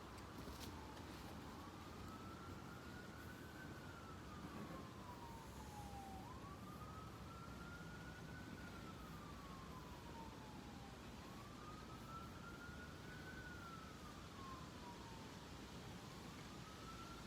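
Emergency vehicle siren in a slow wail, faint over a steady background hiss: the pitch climbs for about two seconds, slides down for about two and a half, and the cycle repeats about every five seconds.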